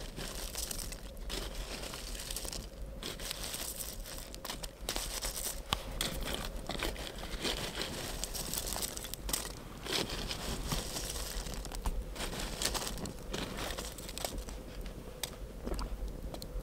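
Wood campfire crackling, many sharp irregular pops over a steady hiss of burning.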